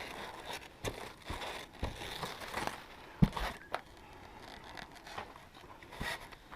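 Packaging on a rooftop tent being handled and pulled at: crinkling and rustling, with scattered light knocks, one sharper knock about three seconds in.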